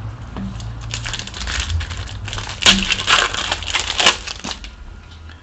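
Crinkling and crumpling of a trading-card pack's foil wrapper as it is torn open, with a few sharp crackles, for about three and a half seconds.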